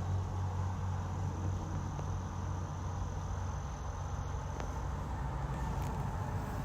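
A steady high-pitched insect trill, typical of crickets, over a steady low rumble. The trill fades about two-thirds of the way through.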